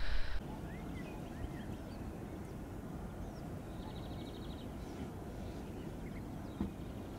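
Quiet outdoor ambience: a steady low background rumble with scattered faint bird chirps, and a brief rapid bird trill about four seconds in.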